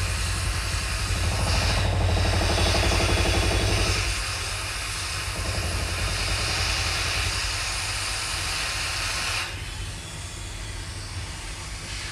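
Hot air rework station blowing a steady hiss of hot air over a laptop motherboard while a replacement power IC is soldered in place, with a low rumble under it for the first few seconds. The hiss drops away about nine seconds in.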